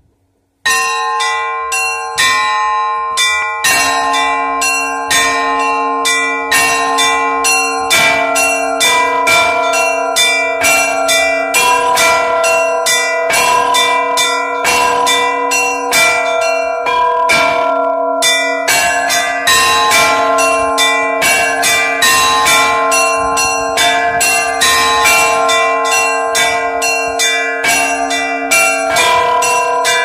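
Russian-style bell ringing (zvon) on a set of eight church bells, three antique and five newly cast Ukrainian bells, struck by one ringer pulling the clapper ropes. It starts about a second in, with rapid strokes of about three a second on the small bells over sustained ringing, and a deeper bell joins a few seconds in.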